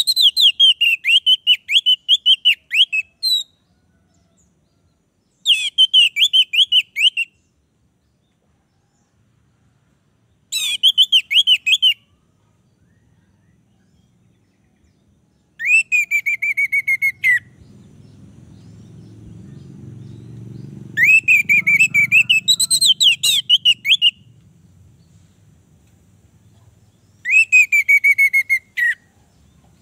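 Orange-headed thrush singing loud short phrases, six in all, spaced a few seconds apart; each phrase is a fast run of repeated whistled notes.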